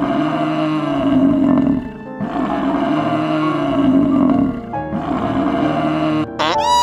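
Water buffalo bellowing: two long, low calls of about two seconds each, rising and falling in pitch, over background music.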